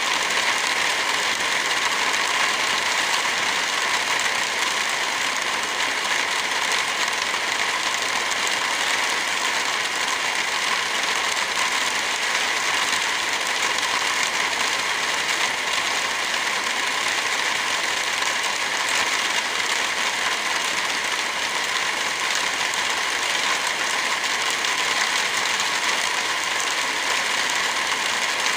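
Heavy rain falling steadily as a dense, even hiss, with no thunder.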